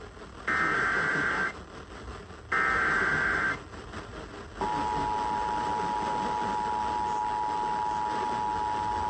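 Emergency Alert System signal on a radio broadcast: two buzzy bursts of SAME header data tones, each about a second long and a second apart, coding the alert. About four and a half seconds in, the steady two-tone EAS attention signal begins, announcing a severe thunderstorm warning.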